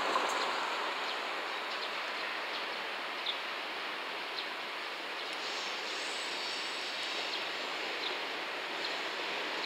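Container freight train hauled by an EF210 electric locomotive running slowly toward the listener: a steady noise of wheels on rail, with a few faint clicks.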